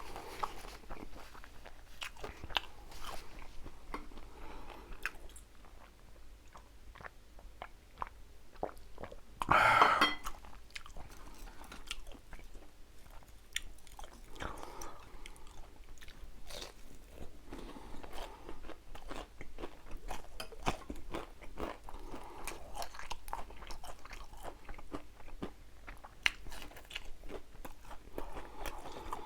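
Close-miked eating sounds: chewing with crunchy bites and many small wet mouth clicks, from a braised pollack and seafood dish. About ten seconds in there is one louder, longer burst of noise.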